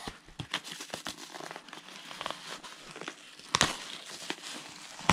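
Packaging being opened by hand: mailer and plastic crinkling and tearing in scattered crackles, with one sharp snap about three and a half seconds in.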